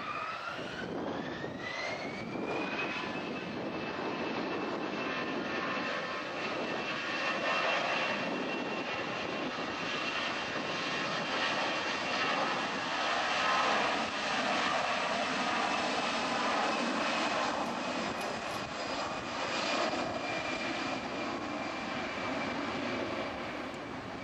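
Airbus A319-100 twin jet engines spooling up to takeoff thrust. A whine climbs in pitch over the first few seconds, then holds steady over a loud roar as the airliner runs down the runway on its takeoff roll.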